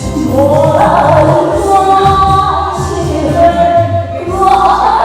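A woman singing a Taiwanese ballad over a backing track, her voice holding long notes through a stage sound system.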